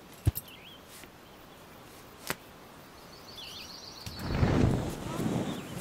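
Two sharp clicks of paragliding harness hardware, with small birds chirping now and then, followed by a loud rushing whoosh about four seconds in.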